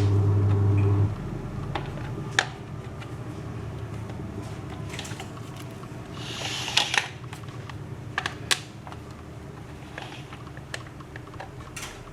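Scattered light clicks and metallic knocks from the parts of a metal wheeled appliance base being handled and fitted together with bolts and nuts. A steady low hum cuts off about a second in.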